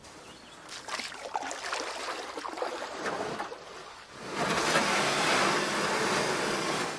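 Kayak paddling: irregular paddle splashes and water lapping close to the hull. From about four seconds in, a louder steady rushing hiss takes over.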